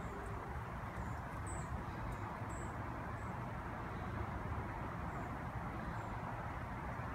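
Steady low outdoor background noise, a rumble and hiss with no clear source, with a few faint short high chirps scattered through it.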